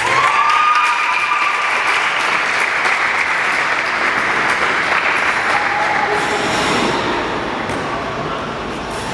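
Audience applauding at the end of a figure skating program, easing off a little near the end.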